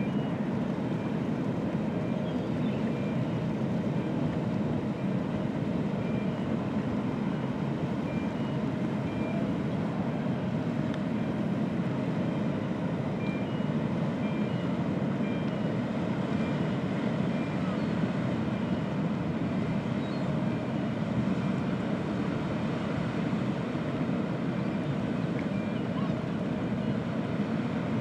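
Steady low rumble of the cruise ship Celebrity Apex's machinery as she sails slowly past. Faint high beeps repeat about once a second through the first half.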